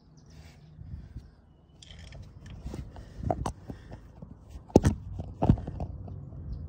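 A floor jack being worked under a motorcycle's frame: a few irregular sharp metal clicks and knocks over a low background hum, the loudest a little under five seconds in.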